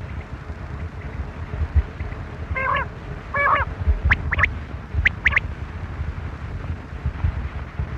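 Quail calling: two short harsh notes, then two quick pairs of sharp rising whistled notes, over wind rumbling on the microphone.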